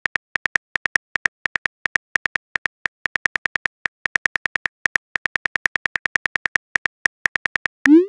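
Phone keyboard click sounds tapping out a text message at about six clicks a second, with short pauses, ending in a brief rising swoosh as the message is sent.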